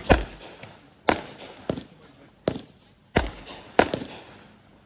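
Fireworks going off: about six sharp bangs in five seconds, spaced irregularly, each trailing off briefly.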